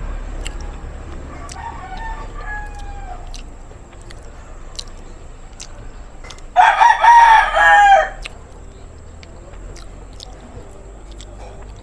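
A rooster crowing: one loud crow lasting about a second and a half, a little over six seconds in. A fainter call falling in pitch comes about two seconds in, with scattered small clicks.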